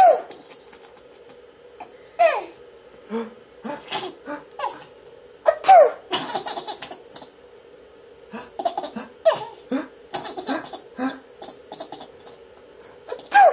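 A young child laughing in short bursts and high, falling squeals at someone's sneezes.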